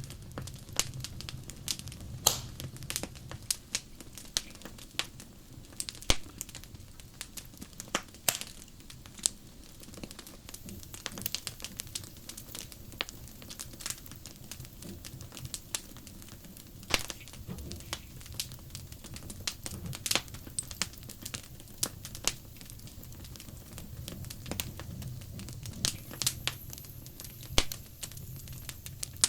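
Wood fire crackling, with sharp irregular pops and snaps from the burning logs over a low steady hum.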